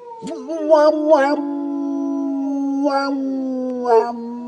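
Dog howling in long held notes, with a few short sharp yips breaking in over it.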